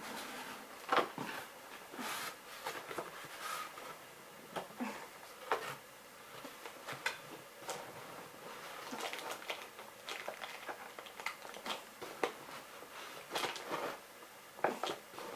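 Irregular rustles, scrapes and sharp clicks of a doll's cardboard-and-plastic packaging being handled as the doll is taken out of her box.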